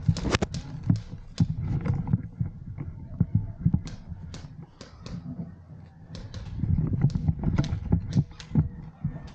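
Handling and movement noise from a camera worn by an airsoft player carrying a replica rifle: low rumbling and thudding of steps and gear, with irregular sharp clicks and knocks scattered throughout.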